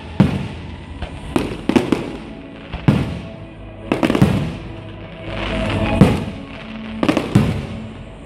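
Aerial firework shells bursting in a display: sharp bangs roughly every second, some in quick pairs, with background music playing underneath.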